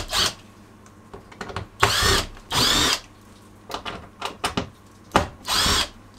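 Cordless drill-driver running in several short bursts, backing screws out of a metal rail mounted on a wooden wall, with small clicks and knocks between the runs.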